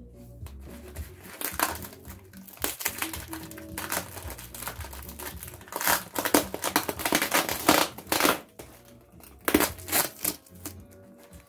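Plastic film and foam packing wrap crinkling and rustling in irregular bursts as it is pulled off by hand, over background music with steady low notes that starts abruptly at the outset.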